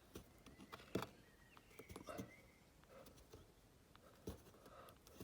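Near silence broken by a few faint, scattered clicks and taps, the clearest about a second in, from small parts being handled and pressed into a socket.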